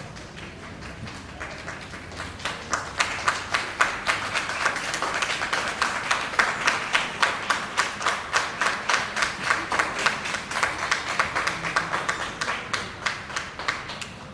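Audience applauding, the claps falling into a steady rhythm of about three a second. It builds up over the first few seconds and stops near the end.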